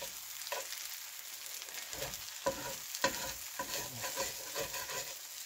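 Scrambled eggs with cabbage and onion sizzling in a cast-iron skillet, while a fork stirs through them and scrapes against the pan in irregular sharp clicks and scrapes.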